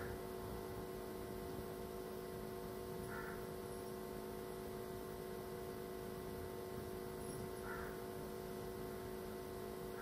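Faint steady electrical hum made of several steady tones, with three faint short chirps, about three, seven and a half and ten seconds in.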